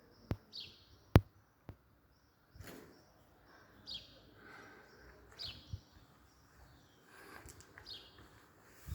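A bird chirping a few times with short, falling calls, and a few sharp clicks or knocks in the first two seconds, the loudest about a second in.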